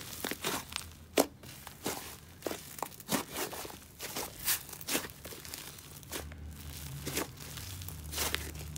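Fluffy, sizzly butter slime squished, folded and stretched by hand, giving irregular sticky pops and crackles as it is pressed.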